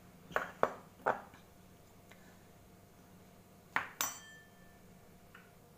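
Stainless steel bowls knocking and clinking on a table as they are set down and moved: three light knocks in the first second, then two sharper clinks about four seconds in, the second ringing briefly.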